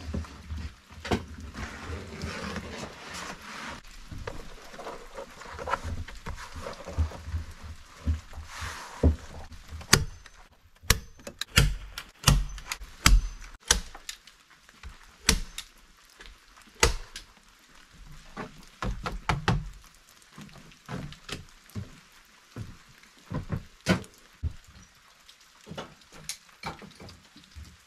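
Scraping and rustling of a utility knife drawn along a metal straightedge over vinyl floor covering. From about ten seconds in, this gives way to a string of sharp knocks, clicks and heavy thunks as a wooden door is worked on and fitted in its frame.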